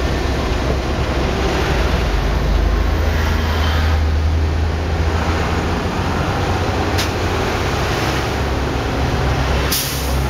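Truck engine and road noise heard from inside the cab while driving: a steady, loud low rumble that eases about halfway through. Two brief sharp rattles or clicks come about seven seconds in and near the end.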